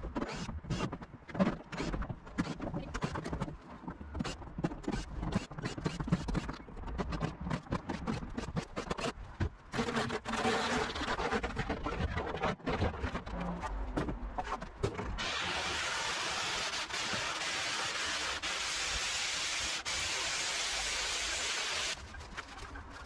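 Corrugated iron sheets being handled and loaded onto a trailer, with many quick knocks and clatters of metal. After that comes a steady hiss lasting about seven seconds, which cuts off suddenly.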